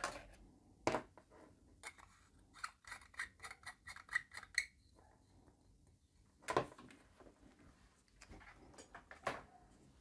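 Light clicks and knocks of handling as an LED bulb's screw base is turned into a plastic lamp socket, with a quick run of about five clicks a second in the first half and a few louder knocks, one about a second in, one past the middle and one near the end.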